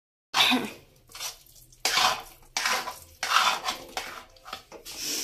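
Steel spoon scraping and knocking against the inside of a steel kadhai while stirring thick carrot halwa, in about five separate strokes roughly a second apart.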